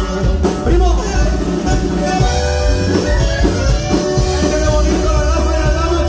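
Live norteño band playing: alto saxophone and button accordion carrying the melody over bass, guitar and a steady drum beat, with a man singing.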